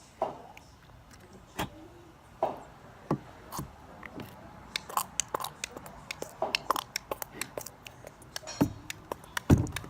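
Hands squishing and kneading a sticky glue-and-water slime mixture, making irregular wet clicks and smacks.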